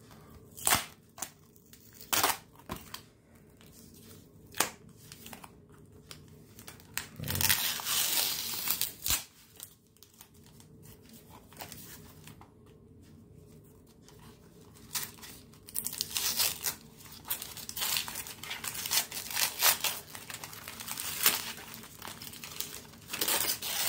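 Cardboard mailer and newspaper wrapping being torn open and crumpled by hand: scattered sharp tears and crinkles at first, a longer rip about seven seconds in, then steady rustling and crinkling of newspaper through the second half.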